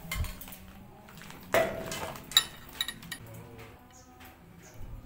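Metal clicks and clinks from bicycle parts being handled and fitted at a chrome handlebar, the loudest knock about a second and a half in and sharper clicks shortly after. Background music runs quietly underneath.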